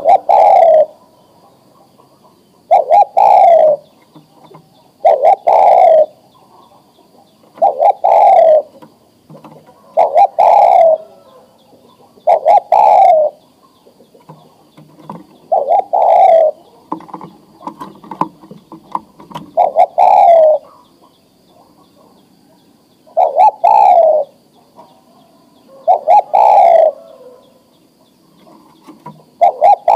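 Male spotted dove cooing over and over, about a dozen calls, one every two to three seconds, each a short lead note running into a longer falling coo: the breeding male's call to a female.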